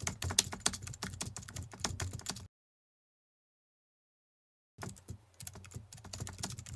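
Computer keyboard typing: rapid key clicks for about two and a half seconds, which cut off abruptly into dead silence, then start again about two seconds later.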